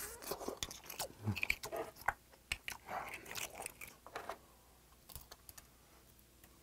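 Close-miked eating of a lightly steamed oyster: slurping it from the shell and chewing, mixed with sharp clicks of oyster shells and a knife being handled, busiest in the first four seconds or so.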